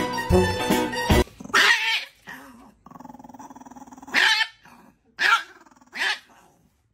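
Background music cuts off about a second in; then a chihuahua barks and growls in four short, sharp outbursts, with a fainter steady sound between the second and third.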